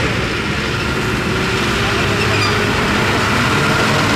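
Diesel engines of a John Deere 6130R and a Zetor Forterra tractor running under load as they pull away hauling loaded two-ton trailers. The engine note climbs a little and grows gradually louder.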